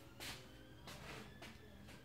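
Quiet room tone with a few faint soft knocks and rustles from a person moving into place and touching the machine, the clearest about a quarter second in.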